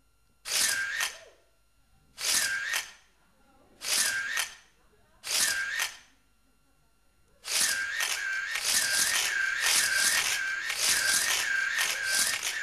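Opening of a dance track over the hall's sound system: four separate scratchy, hissing swells about a second and a half apart, then from about seven seconds in the same scratchy sound repeating rapidly and without a break.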